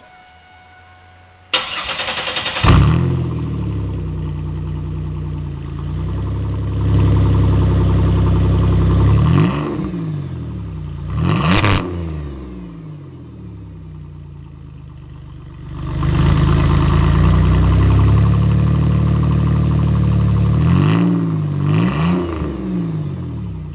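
Straight-piped Pontiac Grand Prix GT's 3.8-litre V6, with no mufflers and only resonator tips, cranks and catches about a second and a half in, then idles loudly. It is revved several times: a held rev a few seconds in, a quick blip near the middle, a longer rev in the second half and two short blips near the end, each dropping back to idle.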